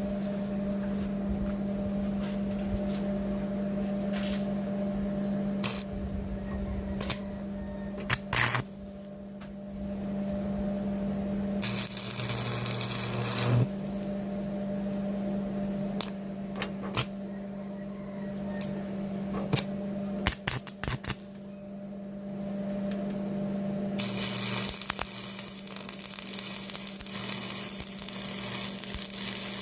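Electric arc welding: a welding machine hums steadily while two stretches of arc hiss and crackle sound, one of about two seconds near the middle and a longer one of about five seconds near the end. Scattered sharp metallic clicks and taps fall in between.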